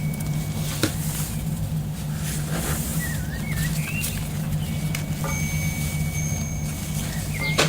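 Small birds chirping over a steady low hum, with a couple of short warbling calls midway and again near the end, and a sharp click at the very end.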